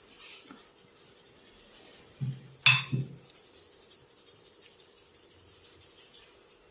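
Hands or a wooden tool rubbing and scratching quickly over skin and hair during a head massage, with three dull thumps and a sharp click about two and a half seconds in.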